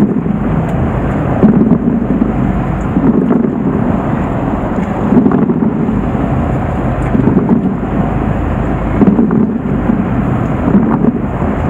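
Wind buffeting the microphone aboard a fishing boat at sea: a loud low rumble that swells and eases every second or two.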